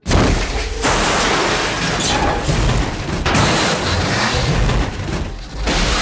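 A ute crashing and rolling over: a sustained loud din of heavy impacts, shattering glass and scraping. It starts abruptly out of silence, with repeated surges and another loud burst near the end.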